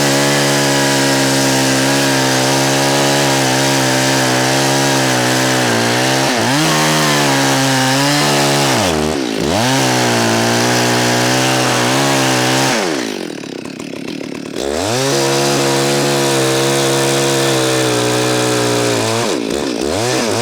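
Chainsaw cutting the angled upper cut of a felling notch in an Araucaria columnaris trunk, engine held at high revs under load. The revs dip briefly twice and about 13 seconds in the throttle is let off to idle for about a second and a half before the saw revs back up and goes on cutting.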